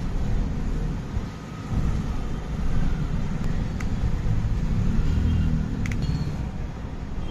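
Low steady rumble of background noise, with a few light clicks about four and six seconds in.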